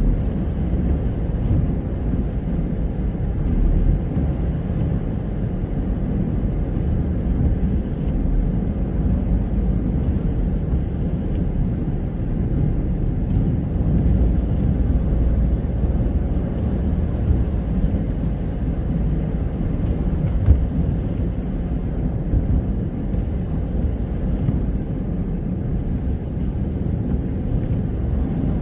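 Steady road and engine rumble of a car driving on a wet road in the rain, heard inside the cabin.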